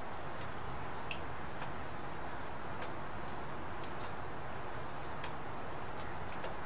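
Steady rain, an even hiss, with single drops ticking sharply and irregularly close by, about one or two a second.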